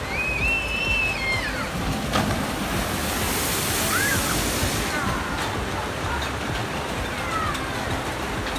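Log flume boat splashing down into the pool: a spray of rushing water about three seconds in, over the steady sound of water running down the flume. Several high-pitched cries rise and fall above it.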